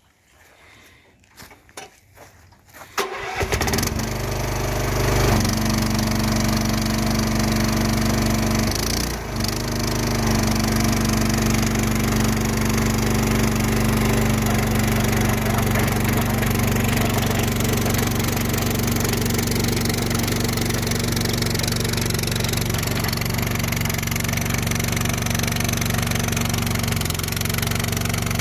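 A few clicks, then the Chinese two-pump skid steer's engine starting about three seconds in and running steadily, with a brief dip about nine seconds in.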